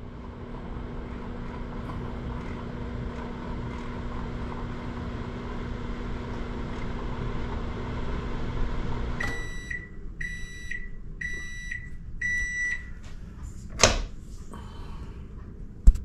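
Whirlpool over-the-range microwave oven running with a steady hum, which stops about nine seconds in, followed by four beeps about a second apart signalling the end of the cooking cycle. A loud clunk follows a little later as the door is opened, then a short click near the end.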